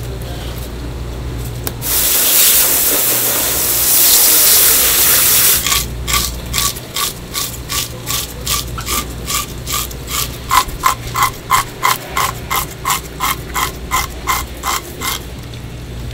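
Metal fish scaler scraping the scales off a large whole fish in quick repeated strokes, about three a second, each a short rasping scrape with a slight ring. Before the strokes start there are a few seconds of loud steady hiss.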